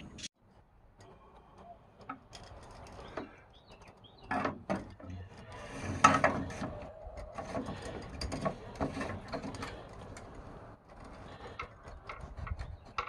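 Irregular clicks, scrapes and knocks of metal tools being handled, with one sharp knock about six seconds in.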